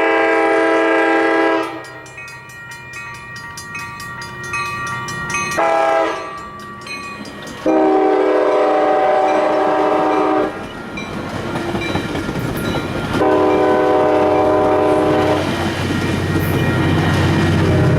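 ACE commuter train's locomotive horn sounding for a grade crossing: a long blast ending about two seconds in, a brief one around six seconds, then two more long blasts. Near the end the low rumble and rail clatter of the passing train rises.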